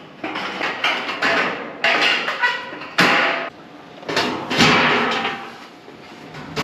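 Corrugated metal roofing sheet being bent and handled: a series of crinkling, rattling swells of thin sheet metal flexing, with a sharp bang about three seconds in.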